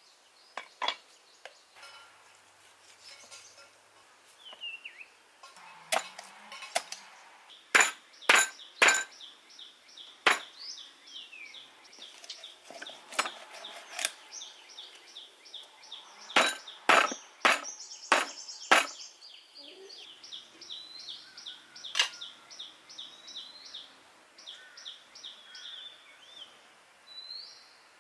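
Sharp, irregular clinks and knocks of cooking utensils and dishes, loudest in clusters through the middle. Throughout most of it a bird gives a fast, repeated chirping trill.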